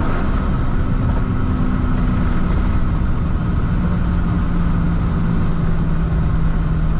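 Engine and road noise of a vehicle being driven on a highway, heard from inside the cab as a steady low drone. The engine's pitch drops about halfway through.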